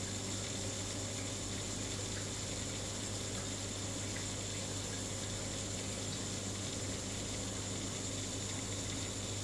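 Reef aquarium pumps and moving water running steadily: a constant low hum under an even, water-like hiss.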